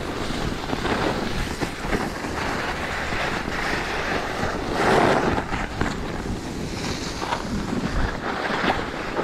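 Wind rushing over the microphone and skis scraping across the snow during a downhill run, a steady noisy rush that swells and eases, loudest about halfway through.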